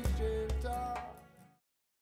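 Music with a heavy bass line fades out and stops about a second and a half in, leaving silence.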